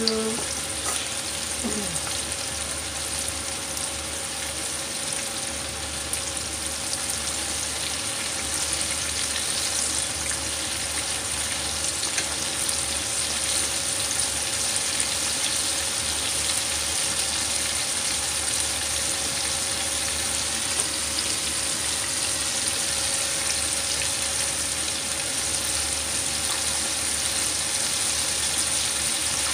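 Pieces of chicken thigh (karaage) deep-frying in hot oil in a frying pan, a steady sizzle, with chopsticks turning the pieces in the oil.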